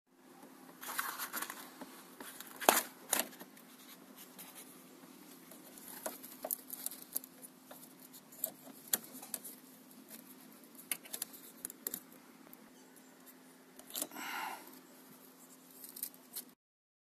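Hands handling plastic door trim and a wiring connector inside a stripped car door: scattered small plastic clicks, taps and rustles, the sharpest a couple of seconds in, with a longer scraping rustle near the end, over a faint steady hum.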